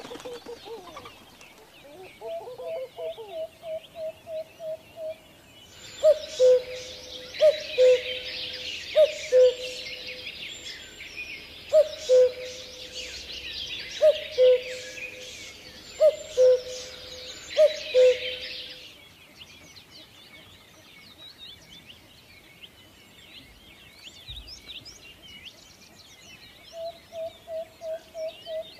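Birds calling. A quick, even run of about eight hoots is followed by a two-note descending call, repeated every second and a half or so over a dense chorus of high chirping birds. The chorus and calls fade about two-thirds of the way through, and the quick run of hoots returns near the end.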